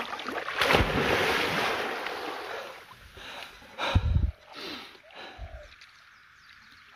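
Water splashing and churning as a person wades waist-deep into a pond and plunges under, dying away after about two and a half seconds as the surface settles. A short low thump about four seconds in.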